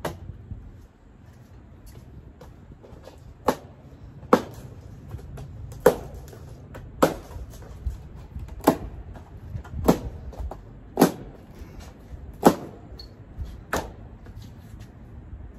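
A series of about nine sharp knocks, one every second or so, from things being handled and knocked about.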